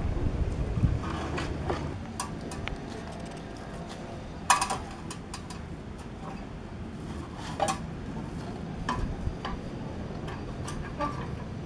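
Steel frames clanking and rattling as they are handled on a trailer: a few sharp metal knocks a couple of seconds apart, over a steady low hum.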